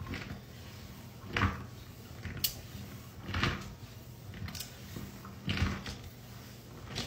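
Hand crushing and sweeping dry powdery crumbles against a ceramic bowl: a soft, gritty crunch with each pass, about once a second. One sharper click comes near the middle.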